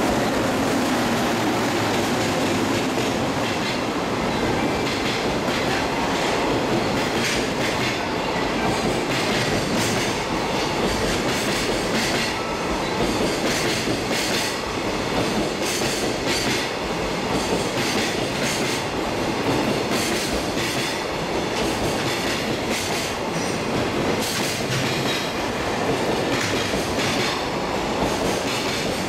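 Freight train's wagons rolling steadily past, wheels clacking over rail joints in an irregular run of knocks that comes thicker after the first several seconds.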